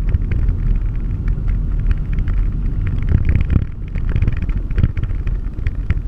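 Inside a vehicle's cabin on a bumpy dirt track: a steady low rumble of engine and tyres, with frequent short rattles and knocks as the vehicle jolts over the ruts.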